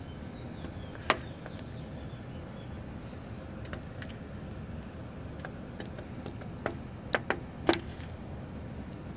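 Steady low outdoor background rumble, with a few sharp clicks and taps: one about a second in and a quick cluster of four near the end.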